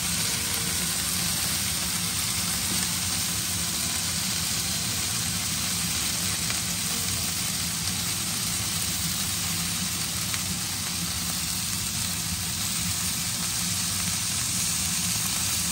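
Green beans and garlic sizzling steadily as they stir-fry in a hot pan, over a low steady hum.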